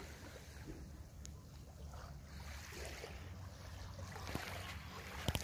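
Calm sea lapping gently at a sandy shore, over a steady low rumble. A few sharp clicks come near the end.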